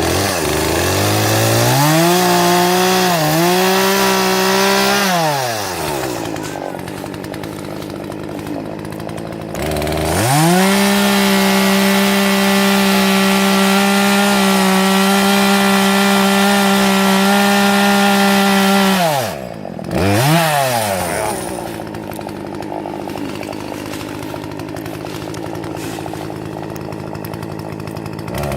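Two-stroke gas chainsaw revved up to full throttle and held while cutting into a fallen tree, dropping back to idle between cuts. It makes a short run, then a long steady run of about nine seconds, then a quick blip of the throttle and an idle, and revs up again at the very end.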